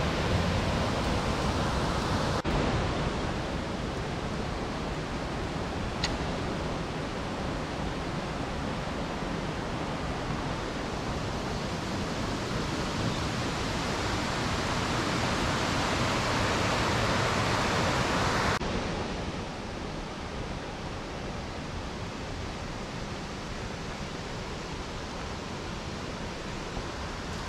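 Steady rush of water from a mountain stream and its small waterfalls, with sudden changes in level about two seconds in and again about two-thirds of the way through.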